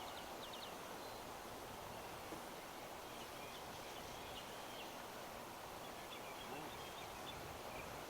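Faint, steady outdoor wind noise on the microphone, with a few faint high chirps now and then.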